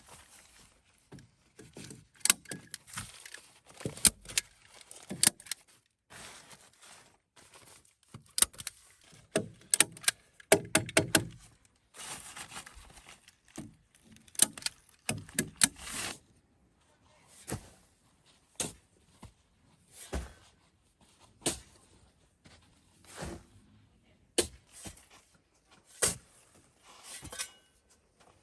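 Knocks and clatter of hand-tool building work: a dense, irregular run of sharp strikes in the first half, thinning to single knocks about every second and a half.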